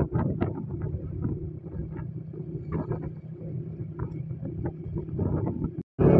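Honda 125 motorcycle's single-cylinder engine running steadily at cruising speed, with wind buffeting the microphone in gusts. Near the end the sound cuts out for an instant and the engine comes back louder and closer.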